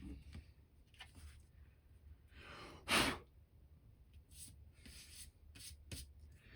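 A person's forceful exhale, one short rush of breath about three seconds in, with a few faint clicks around it.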